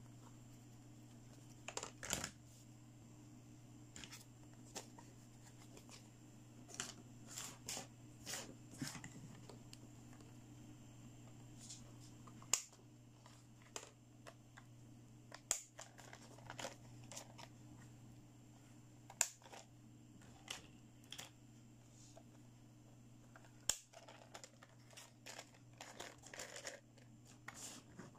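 Small hard plastic toy parts clicking and tapping as legs and wheels are snapped into a pink plastic toy hospital bed, with scattered sharp clicks over a faint steady low hum.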